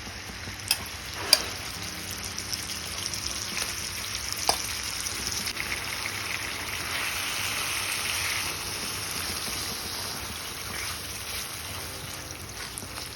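Marinated chicken sizzling as it fries in hot oil and butter in a pan. There is a steady hiss, with a few sharp clicks in the first few seconds.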